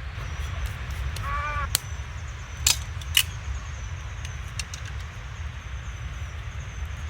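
A crow caws once about a second in, then three sharp knocks of firewood being split follow over the next second and a half, over a steady low rumble.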